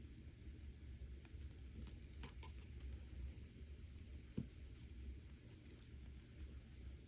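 Faint scattered clicks and ticks of thin silver-plated copper wire being bent and handled by fingers, with one sharper knock a little past the middle, over a low steady hum.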